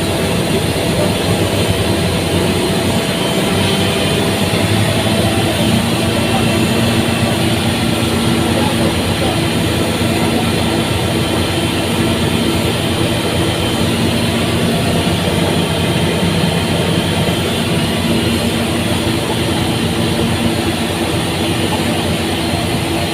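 Air compressor driven by a permanent-magnet synchronous motor on a variable-frequency drive, running steadily. A machine noise with several steady tones; lower tones fill in a few seconds in.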